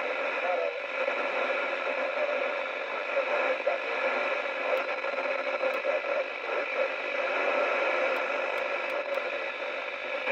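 CB radio receiver on FM putting out steady static hiss through its speaker, with faint wavering traces under the noise and no clear voice.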